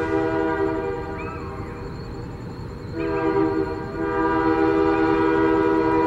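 Union Pacific freight locomotive's multi-chime air horn sounding for a grade crossing as the train approaches: one blast that fades out about two seconds in, then after a short gap a long blast starting about three seconds in.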